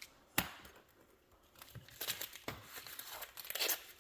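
Cardboard and packing tape being handled and cut to free glass cutouts that are taped down: a sharp click about half a second in, then crackling, rustling and scraping of tape and cardboard from about two seconds in.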